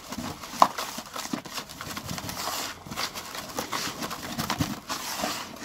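A hand mixing damp fishing groundbait in a plastic bucket: irregular scraping and rustling of the crumb, with small knocks against the bucket. The groundbait is being wetted and worked.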